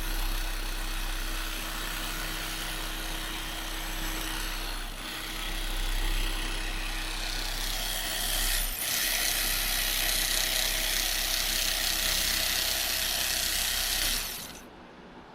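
Corded electric power cutter running steadily as it cuts through a block of white foam, with two brief dips about 5 and 9 seconds in, then switched off shortly before the end.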